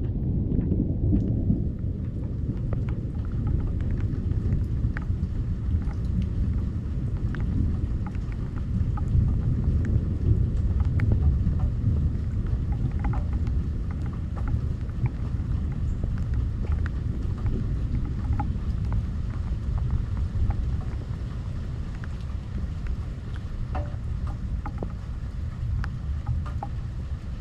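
Thunderstorm: a long, continuous low rumble of thunder that swells slightly near the middle, with rain falling throughout and scattered individual drops ticking.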